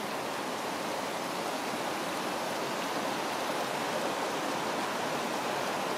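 Steady rush of a waterfall, river water pouring over rocky rapids.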